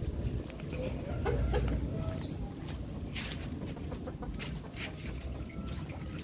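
Hungry baby otter pups giving a few short, high-pitched chirping calls between about one and two and a half seconds in, over a steady low rumble.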